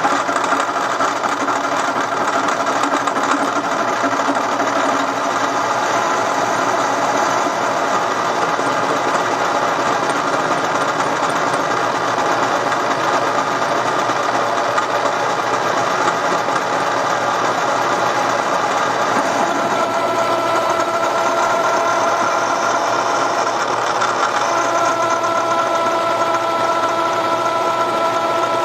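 Milling machine running a three-flute end mill at about 2,400 RPM, fed down slowly to cut a flat on a Sportster cylinder head for a second spark plug. The cutting makes a steady machining noise. A high steady tone comes in about two-thirds of the way through, and more tones join near the end.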